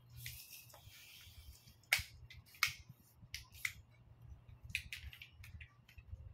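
Hands handling objects: a short rustle, then a string of sharp, irregular clicks and taps, the two loudest about two seconds in.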